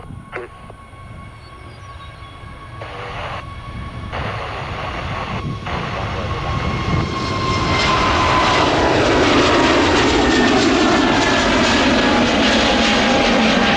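Jet airliner's engines at takeoff power. The sound swells for about eight seconds and then holds loud, with a whine that falls in pitch as the plane goes by.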